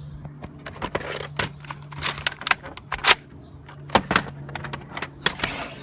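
A rapid, irregular series of sharp clicks and knocks, loudest about three and four seconds in, over a steady low hum.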